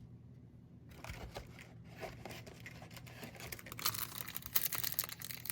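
Foil wrapper of a baseball card pack being torn open and crinkled by hand: after about a second of quiet, a run of irregular crackling that gets denser and louder near the end.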